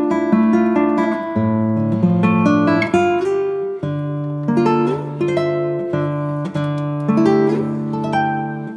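Background music: a plucked acoustic guitar playing a run of notes over a steady lower part.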